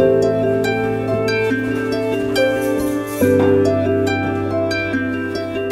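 Background music of plucked, harp-like notes over sustained low bass notes, the chords changing every second or so.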